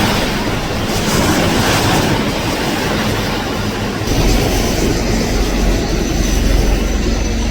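Helicopter running: a loud, even rush of noise, then about halfway a deeper, fast rotor beat with a steady high turbine whine over it.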